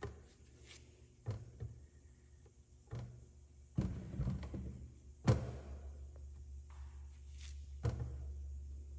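Bait blocks set down on a digital scale's metal pan and stainless-steel table: a series of scattered knocks and thuds, about six, the loudest about five seconds in. A low steady hum runs underneath and grows stronger from about five seconds in.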